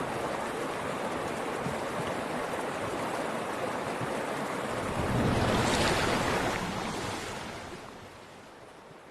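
Rushing water, a steady noise that swells to its loudest about five to six and a half seconds in, then fades away.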